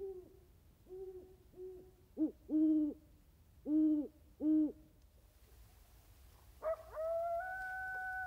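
An owl hooting: about seven low hoots, some coming in short-long pairs. After a change of recording comes one long, steady, higher call of about two seconds.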